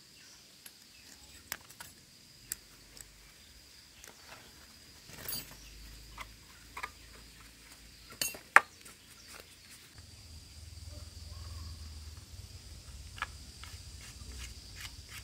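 Faint, steady high-pitched insect trill, with scattered clicks and knocks, the sharpest about eight and a half seconds in. A low rumble joins about ten seconds in.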